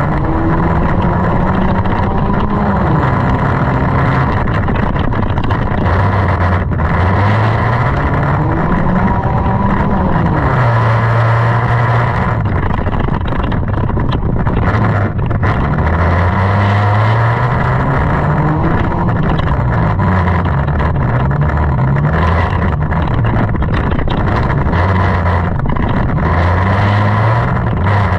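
Junk race car's engine running hard, its pitch climbing and dropping back again and again as it accelerates and lifts off, over a steady loud rushing noise.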